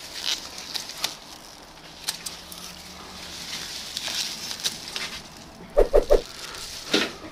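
Scissors snipping through vine stems in short sharp clicks, with leaves rustling as the cut growth is pulled out. Near the end an animal calls three times in quick succession, loud and short, the loudest sound here.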